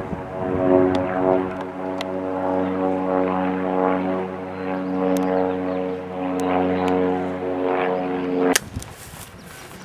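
A steady engine-like drone holding one pitch, cutting off abruptly about eight and a half seconds in. A few faint sharp clicks sound over it.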